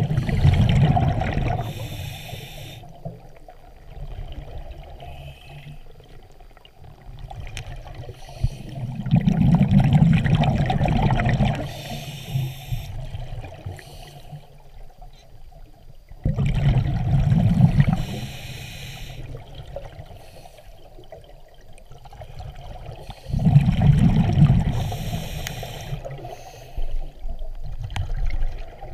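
Scuba diver breathing through a regulator underwater: four slow breaths, each a low rush of exhaled bubbles followed by a short hiss from the regulator.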